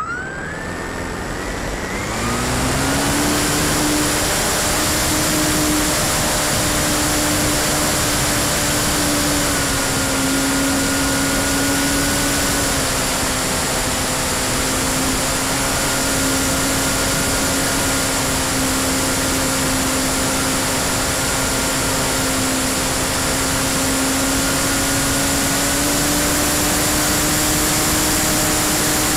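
Electric motor and propeller of a Freewing P-51D foam RC warbird, heard from a camera mounted beside the spinning prop. The motor whine rises in pitch over the first two seconds as the throttle comes up for takeoff. It then holds a steady pitch in flight, with a few small shifts as the throttle changes, over a heavy rush of propeller wash and wind.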